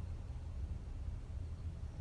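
The pause between a woman's heavy snores: no snore sounds, only a steady low room rumble.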